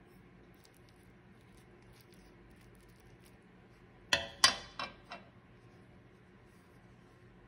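Metal spoon clinking against a frying pan, four quick strikes with a short ring about four seconds in, as it is set back down in the pan; otherwise only faint room tone.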